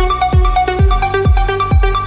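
Electronic dance music: a steady four-on-the-floor kick drum about twice a second, with hi-hats and a stepping synth melody over it.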